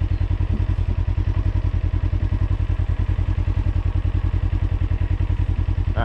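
An engine idling close by with a steady, fast pulsing beat.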